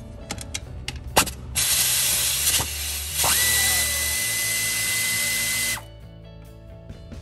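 A few clicks, then a power tool runs in two bursts, loosening the alternator's lower retaining bolts; a steady high whine comes in with the second, longer burst, which stops abruptly about six seconds in.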